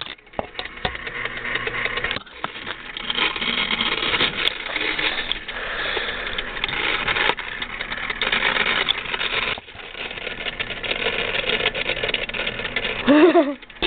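Sunbeam electric clock movement running: its small synchronous motor and gear train whirring with a dense, uneven clicking. The shift gear on the rotor is damaged, which the owner calls 'shot'.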